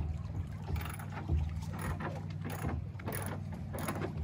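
A ratchet clicking in an even rhythm, about two clicks a second, over a steady low hum.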